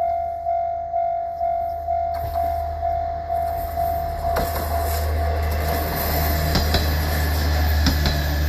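Japanese level-crossing warning bell ringing about twice a second, an older-style electronic alarm tone, while a train passes over the crossing from about two seconds in, its rumble and the clack of wheels over rail joints swelling and partly covering the bell.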